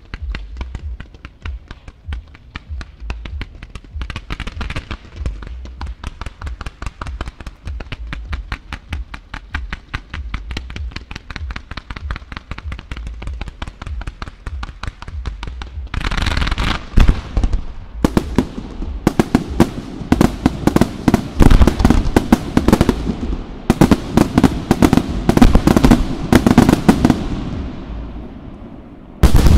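Fireworks display: a rapid run of small pops and launches from ground-fired comets and mines, many a second, then about halfway through a much louder, dense barrage of aerial shell bursts with booms. The barrage eases off near the end, and a sudden loud burst comes right at the close.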